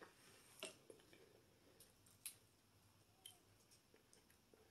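Near silence, with a few faint short clicks from eating crisp Mexican pizza.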